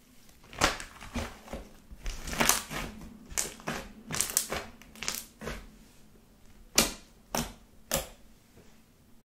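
Pink body-lotion glue slime being stretched and pressed by hand, giving a run of short sticky clicks and squelches, a few a second, then three well-spaced pops near the end.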